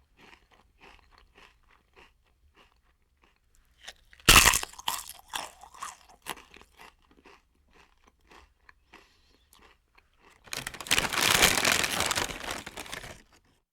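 Potato chips being eaten: quiet rhythmic chewing crunches, a loud crisp bite about four seconds in followed by chewing crunches that fade, then a dense, loud crackling stretch of about three seconds near the end.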